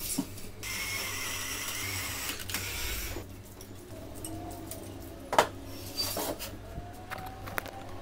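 Wooden frame strips being handled and screws driven into them with a hand screwdriver. About half a second in there are a few seconds of scraping and creaking, then a few sharp knocks, the loudest about halfway through.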